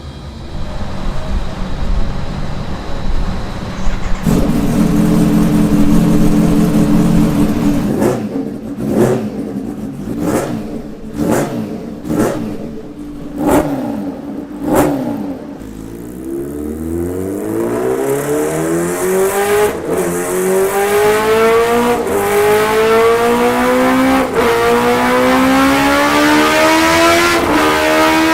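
Sport motorcycle engine running at a steady idle, then revved in about six sharp blips. It then accelerates hard, its pitch rising in long sweeps that drop suddenly at each upshift, three times.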